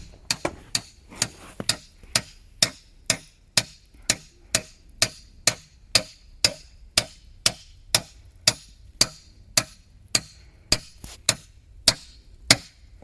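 Hammer driving nails into wooden boards, sharp even blows about two a second.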